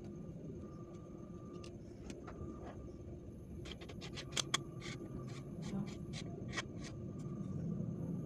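A Betamovie lens being handled and fitted into a home-made PVC ring light: a run of small clicks and taps, thickest from about three and a half to seven seconds in, over steady low background noise.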